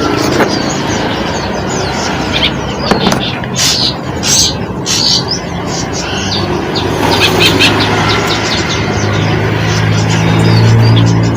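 Small birds chirping repeatedly with short high calls, while a motor vehicle's engine hum grows louder through the second half.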